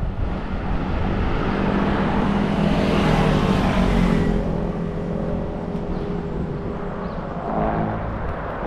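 An engine running steadily under rushing wind and road noise. The sound swells louder about three to four seconds in, then eases back.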